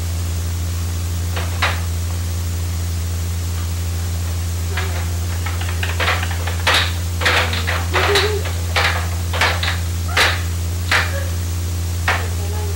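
A steady low electrical hum and hiss under a run of light clicks and knocks, one or two a second from about six seconds in, as a baby in a high chair handles a plastic ring toy and a feeding spoon against the tray.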